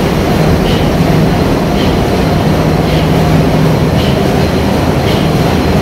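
Loud, steady din of a ship's engine room with its machinery running, with a low hum and a faint tick repeating about once a second.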